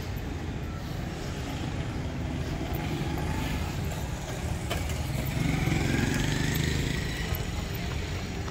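Small motorcycle engine passing close by, growing louder about five seconds in with a rising engine note, over a steady low rumble.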